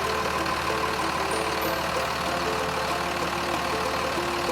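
Steady engine rumble of a cartoon vehicle, with a simple melody of held notes changing pitch every half second or so.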